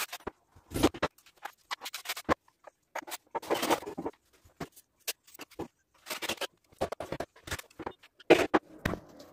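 Wooden shelf boxes handled and hung on a wall: irregular short knocks, clatters and scrapes of wood against the wall and the wall fixings, with brief pauses between them.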